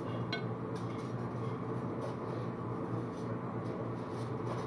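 Steady hum of commercial kitchen equipment, with a few light clicks of a metal spoon against a plate.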